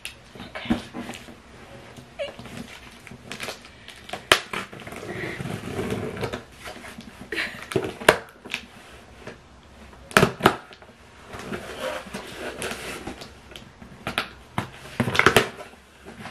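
Cardboard shipping box being handled and its packing tape slit open with a pointed tool: sharp knocks and clicks with stretches of scraping and tearing.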